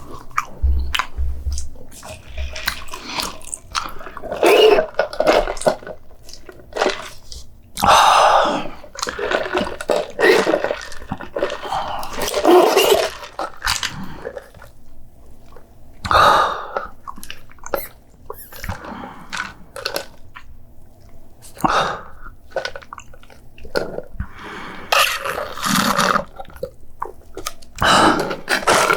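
Close-miked eating sounds: a person chewing and biting food, with irregular sharp mouth clicks and short wet bursts.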